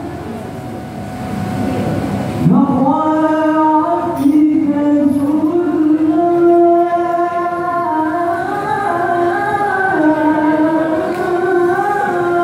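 Al-Banjari group's voices singing a sholawat through microphones, in long wavering held notes with ornamented turns. The singing is softer for the first couple of seconds, then grows fuller and louder.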